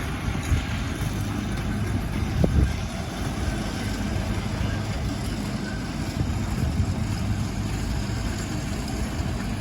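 A small park train running with a steady low engine hum, with a brief thump about two and a half seconds in.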